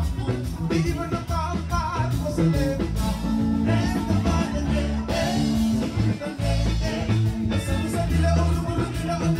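Live band music: several men singing into microphones over acoustic guitar, a heavy bass line and a steady beat.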